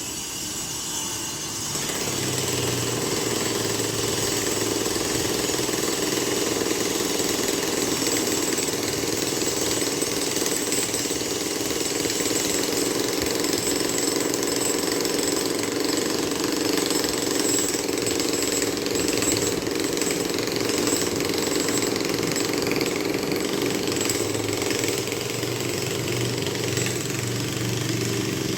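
Construction site noise: heavy machinery running steadily, growing louder and fuller about two seconds in.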